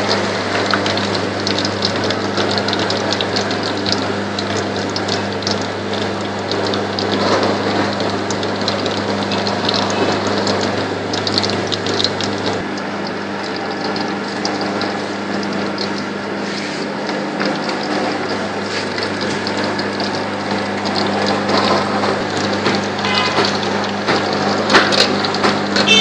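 Dense clattering and clicking over a steady mechanical hum, with a lower hum cutting out about halfway through.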